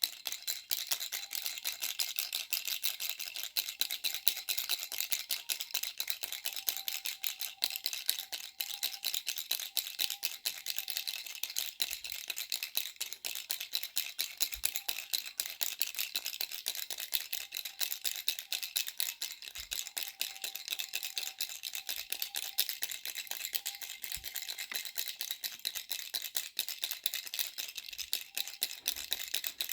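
Baby rattle shaken continuously, a dense, fast stream of small clicks that keeps an even level throughout.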